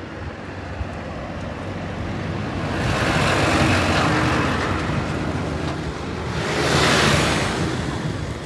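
A tanker lorry passing close by on the road, its engine and tyre noise building to its loudest about three to four seconds in and then fading. A second swell of vehicle noise passes about seven seconds in.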